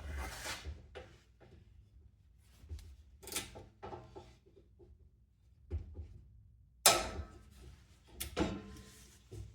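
Irregular knocks, clicks and scrapes from a box fan being handled and turned around while it is taken apart, with a sharp knock about seven seconds in.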